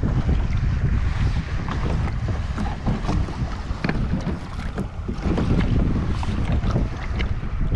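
Wind buffeting the microphone on open water, with irregular small slaps and splashes of water against a kayak.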